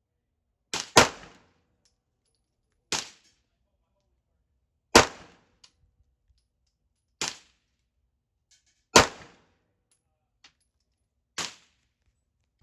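Gunfire at a shooting range: seven sharp shots, the first two in quick succession, then the rest spaced about two seconds apart, some noticeably louder than others.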